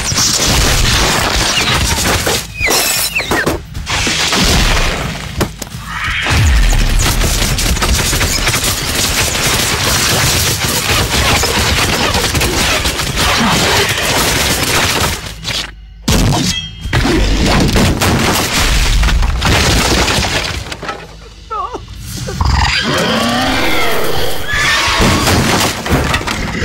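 Loud, dense film action soundtrack: crashing and breaking noise mixed with music, dropping out briefly twice, with wavering voice-like cries near the end.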